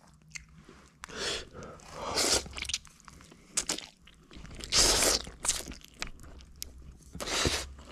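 A person eating dry-tossed rice noodles with chopsticks close to the microphone: chewing and mouth noises in several short loud spells, the loudest about five seconds in and again near the end.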